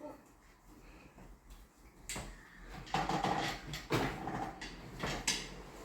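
A few sharp knocks and clatters, roughly one a second, starting about two seconds in after a quiet stretch.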